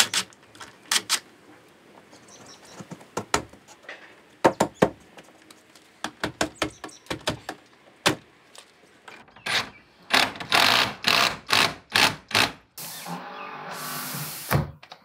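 Cordless drill-driver driving screws into an aluminium window frame beside the lock keeper: scattered clicks and knocks, with a run of short driver bursts about ten to twelve seconds in. Near the end a steadier sound lasts about a second and a half.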